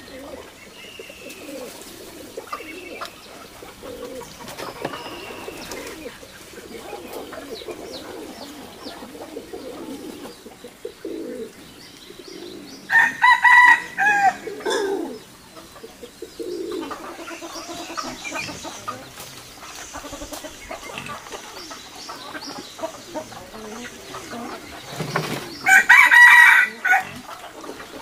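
A rooster crowing twice, about halfway through and again near the end, each crow lasting a second or two, over steady clucking of hens.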